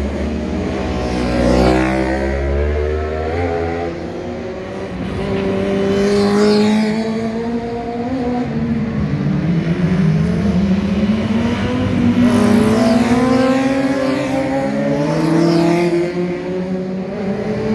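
Racing motorcycle engines revving hard and changing gear as bikes race around the circuit, the pitch repeatedly climbing and dropping, with several louder passes.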